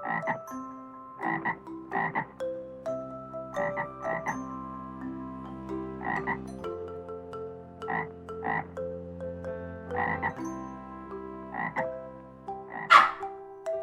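Animal calls: short, sharp calls repeated about a dozen times at uneven gaps of under a second to about two seconds, over steady held tones. The loudest call comes near the end.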